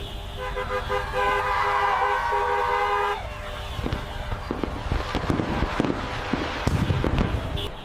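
Car horns honking, holding and beeping for about three seconds, then a rapid string of fireworks pops and bangs with deeper thumps among them.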